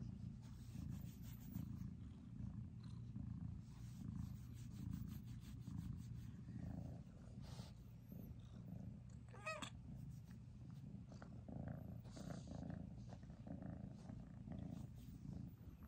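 Orange-and-white kitten purring steadily, close to the microphone, as it is stroked on a lap.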